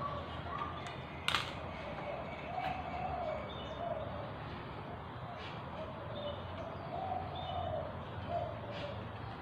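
Pigeons cooing repeatedly in the background over a steady low hum, with a sharp click about a second in and a couple of fainter clicks later.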